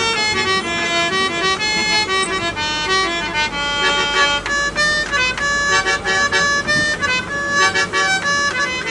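A hand-pumped harmonium playing a melody in sustained reedy notes. About halfway through, it breaks into a quicker run of short notes.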